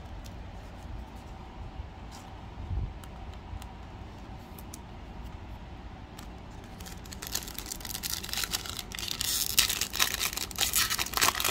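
A Panini Donruss Optic trading-card pack's shiny foil wrapper being torn open by hand, with loud crinkling and tearing from about seven seconds in, after a few light handling clicks.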